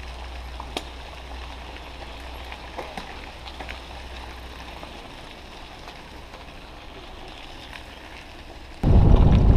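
Bicycles rolling past on a gravel path: a steady hiss of tyres on gravel with scattered small ticks and clicks. Near the end a loud wind rumble on the microphone starts suddenly as the camera sets off moving.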